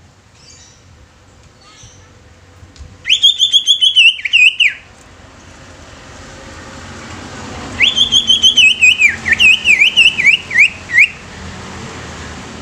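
Greater green leafbird (cucak ijo) singing loudly in two rapid phrases a few seconds apart. Each phrase opens with a rising note and runs on into a quick string of dipping, swooping notes, and the second phrase is the longer.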